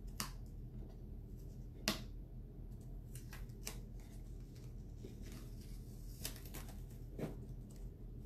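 A craft transfer being peeled up off a chalkboard surface and handled: scattered crinkles and sharp clicks of the plastic sheet, the loudest about two seconds in, over a low steady hum.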